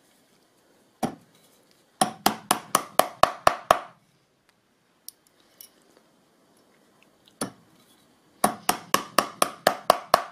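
A magnetic tacking hammer drives two upholstery tacks through folded-over webbing into a chair frame. For each tack there is a single tap to set it, then a quick run of ringing strikes, about five a second, to drive it home.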